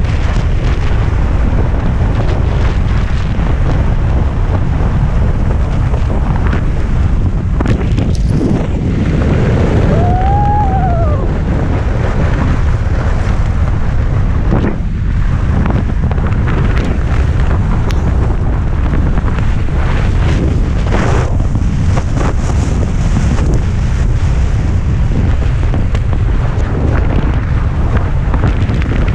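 Loud, steady wind buffeting the microphone of an action camera mounted on an inflatable tube being towed at speed over water, with rushing water and spray.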